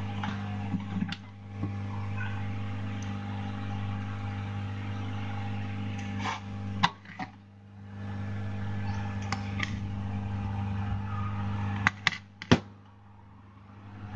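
Steady electrical hum with fan whir from bench repair equipment, broken by a few sharp clicks and two brief dips in the noise.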